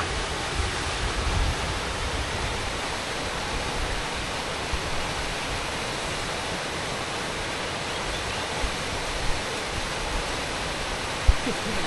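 Waterfall and rocky stream rushing: a steady, even roar of falling and tumbling water.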